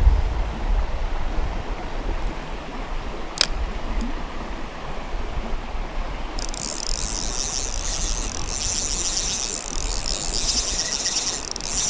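Shimano Vanford spinning reel being cranked to retrieve line, a fast high-pitched whirring rattle starting about six and a half seconds in, over the steady rush of moving stream water. A single sharp click comes about three seconds in.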